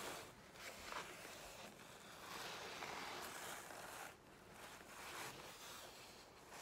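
A sheet of paper being peeled up off wet acrylic paint for a monoprint, making a sticky, zipper-like crackle in several long pulls, the longest in the middle.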